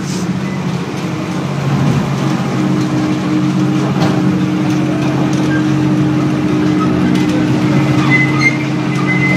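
Kiddie ride train's motor running with a steady low hum as the train moves along its track, a higher steady tone joining in about two and a half seconds in.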